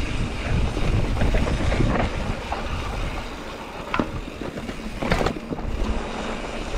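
Mountain bike rolling down a dirt trail: wind buffeting the microphone over the noise of tyres and rattling bike parts, with a couple of sharp knocks about four and five seconds in.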